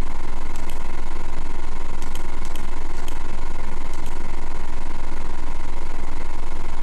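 A steady, loud, low hum with a fainter high whine held over it, never changing in level, and a few faint ticks in the first half.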